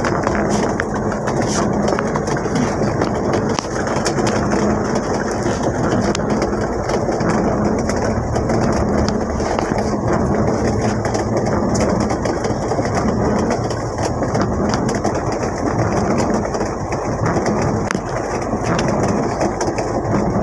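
Mitsubishi L300 van's engine running steadily, heard from inside the cab, mixed with heavy rain on the van's body and windows.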